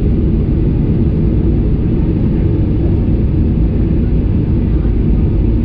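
Steady low rumble inside the cabin of a Boeing 737-800 airliner, with no single sound standing out.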